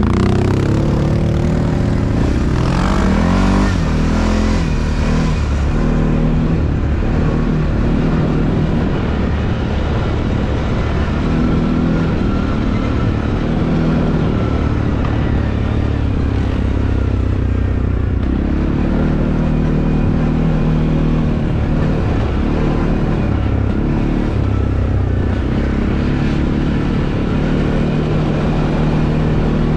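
ATV engine running under changing throttle, its pitch rising and falling repeatedly as it revs up and eases off.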